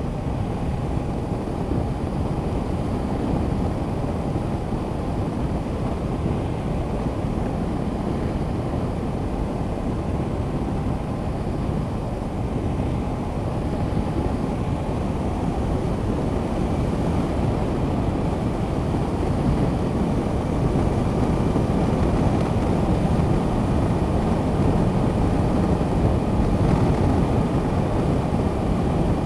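Wind rushing over the microphone of a bike-mounted action camera, mixed with the steady running of a Honda CB500X's parallel-twin engine cruising along at constant speed. It grows a little louder in the second half.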